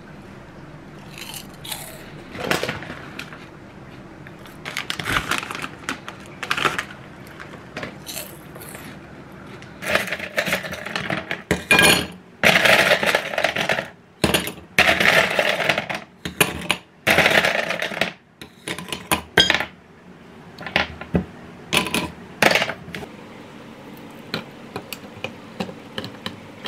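Light clinks and taps of a glass dessert plate and cookies being handled on a stone countertop, then ice cubes clattering and clinking into a glass goblet in a run of loud rattles through the middle, with a few last clinks before it goes quiet.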